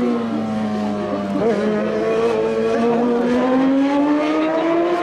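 Race car engine running hard on a hill climb, its note held low through the middle, then climbing steadily as the car accelerates again near the end.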